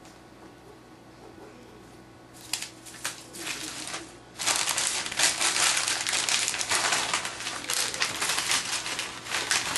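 Paper notes being crinkled and crumpled by hand: after a quiet start, scattered crinkles begin about two and a half seconds in, and dense, loud crumpling follows from about four and a half seconds in.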